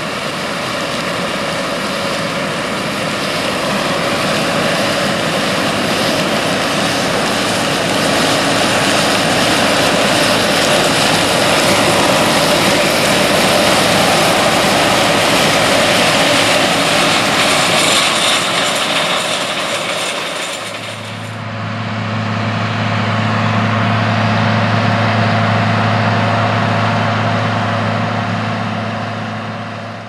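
John Deere 9600 combine and John Deere 4640 tractor running side by side while corn pours from the combine's unloading auger into the grain cart: a dense, steady machine noise. About 21 seconds in it changes to a steady, deep engine drone: the 4640's 7.6-litre six-cylinder diesel pulling the grain cart.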